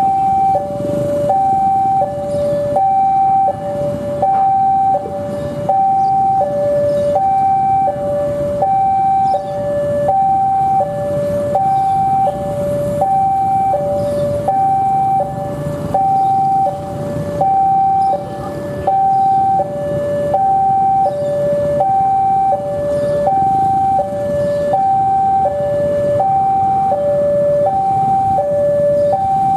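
A steady electronic two-tone warning alarm, alternating high and low with each tone lasting about three-quarters of a second. Under it is the low rumble of a CC 201 diesel-electric locomotive idling at the platform.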